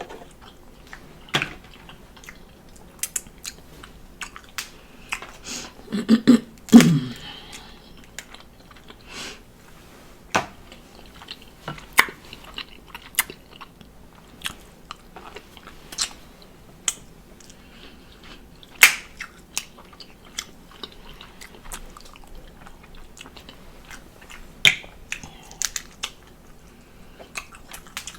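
A person chewing and biting seafood close to the microphone, with many short sharp clicks scattered throughout and a louder cluster of them about six to seven seconds in.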